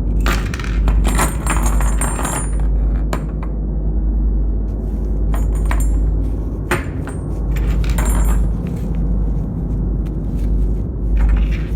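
Small metal parts and tools being handled: clinking and rattling, with bursts of clicks near the start, about two-thirds of the way in and near the end, over a steady low hum.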